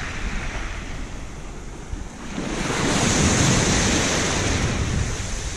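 Small sea waves washing in over a sand and shingle beach close to the microphone. A wave builds and breaks about two and a half seconds in, the loudest moment, then fizzes back down, with wind buffeting the microphone throughout.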